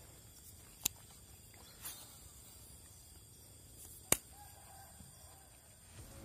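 Faint outdoor ambience with a steady high insect-like hiss, broken by two sharp clicks, about a second in and about four seconds in, and a softer swish near two seconds.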